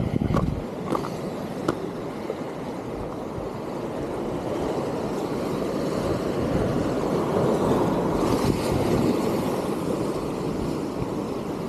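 Surf washing against jetty rocks: a steady rushing that swells to its loudest a little past halfway and then eases. A few sharp clicks come in the first two seconds.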